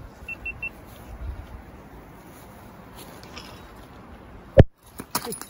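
Handling rustle and a low wind rumble on a handheld camera's microphone at an exposed cliff belay, with three very short high peeps near the start. About four and a half seconds in there is one sharp, loud knock, followed by a few smaller clicks.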